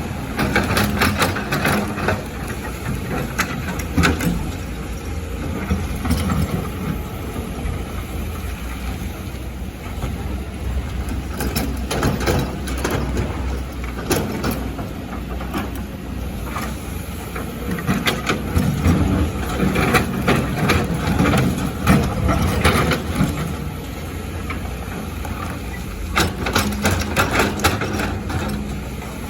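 Excavator's diesel engine running steadily, with bursts of clanking and knocking as the bucket works rock and sand, near the start, twice in the middle and near the end.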